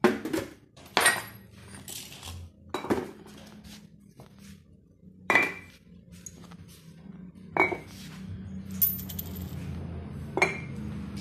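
Metal calibration weights set down one after another onto the metal platform of a platform scale: six sharp clanks, each with a brief ring, one to three seconds apart, with shuffling and handling noise between them.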